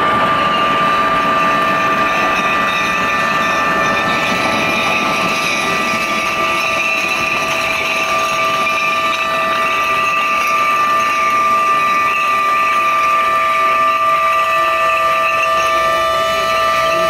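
A steady high-pitched horn sounds without a break during a ship launch, over a continuous rushing noise as the newly built ship slides down the slipway into the water.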